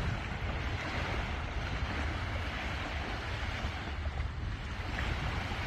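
Small sea waves washing onto a sandy shore, with wind buffeting the microphone as a steady low rumble.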